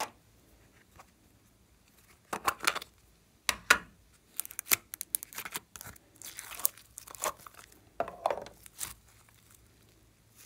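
Shiny purple slime being peeled out of a clear plastic tub and stretched by hand: irregular bursts of sticky crackling and tearing, mixed with plastic clicks from the tub, starting about two seconds in.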